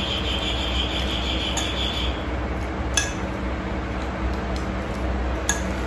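Metal spoon scraping and clinking against a plate while mixing noodles, with a few sharp clinks spread through, over a steady low background hum. A faint high whine stops about two seconds in.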